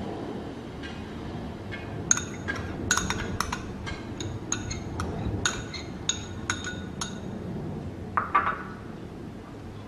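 A metal spoon clinking repeatedly against a small ceramic bowl, about a dozen light ringing taps as soy sauce is scraped out of it. Near the end, a louder clatter as the ceramic bowl is set down on the table.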